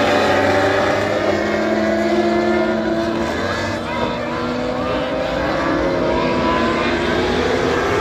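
A pack of dwarf race cars running laps together on a dirt oval: several engines at once, their pitches rising and falling in overlapping lines as the cars accelerate and lift around the track.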